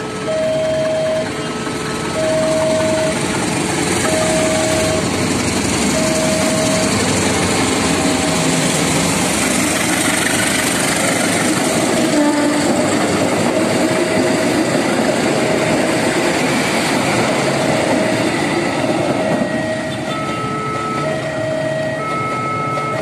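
Passenger train passing a level crossing, its wheels rumbling and clattering over the rails; the sound is strongest midway and eases near the end as the last coach moves away. Over it a level-crossing warning alarm repeats a short two-note electronic chime about once a second.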